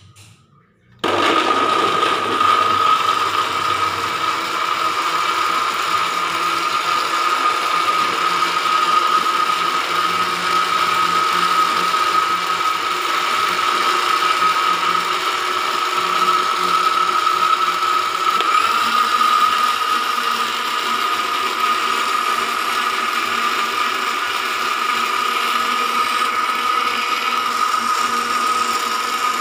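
Electric kitchen blender switched on about a second in, then running steadily with a high motor whine and a rattling, gear-like buzz; its tone shifts slightly about two-thirds of the way through.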